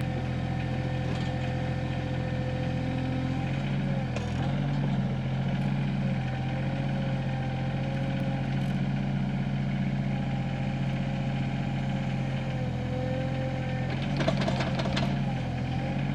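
SANY SY26U mini excavator's diesel engine running steadily under digging load, with a steady whine over the engine hum. A short clatter comes near the end.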